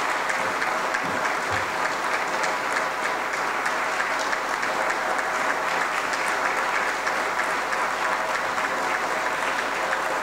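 An audience applauding steadily, many people clapping at once with no break.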